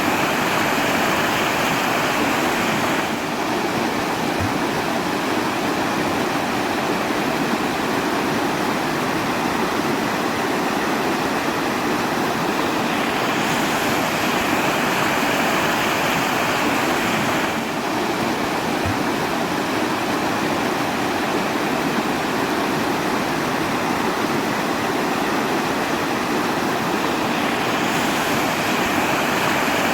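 Steady rushing water, an even hiss whose tone shifts slightly a few times.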